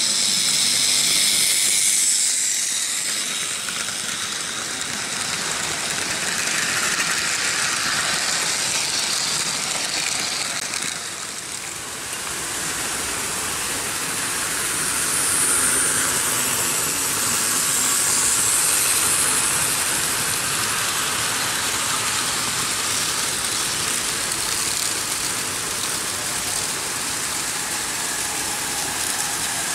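Märklin H0 model trains running on metal M-track: a steady whirring hiss of small electric motors and wheels rolling over the rails.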